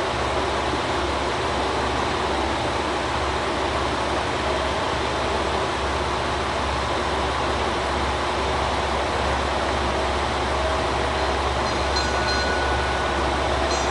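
JR Kyushu KiHa 185 diesel railcar idling at the platform: a steady low engine hum under the station's general noise. A faint high beeping comes in near the end.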